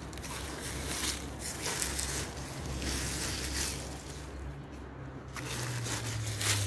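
A hand weeder, a small hoe-and-fork garden tool, scraping and chopping into dry soil in irregular strokes, tearing weeds out by the roots.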